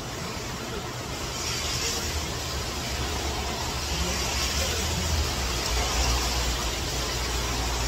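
Heavy rain pouring down with a rain-swollen river rushing below: a steady hiss over a low rumble, growing a little louder after the first second or two.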